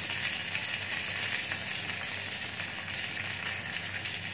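Hot oil sizzling steadily in a small steel tempering ladle as curry leaves, crushed garlic, mustard seeds and chillies fry in it, with a steel spoon stirring through them.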